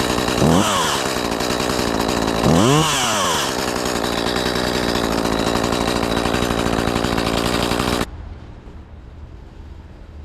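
Shindaiwa 280TS two-stroke chainsaw running, revved up and back down twice in quick blips; the sound cuts off suddenly about eight seconds in.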